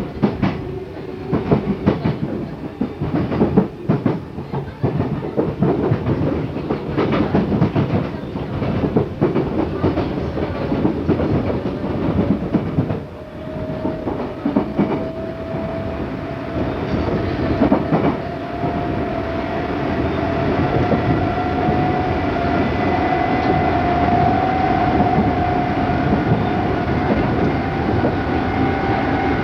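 Running sound inside an Odakyu 8000 series unrefurbished field-chopper electric train: wheels clattering over rail joints through the first half. From about halfway, a traction motor whine rises slowly in pitch as the train picks up speed.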